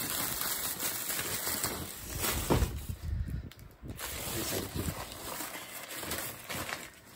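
Newspaper rustling and crinkling as hands unwrap and handle bundles of vegetables in a cardboard box, with a dull thump about two and a half seconds in.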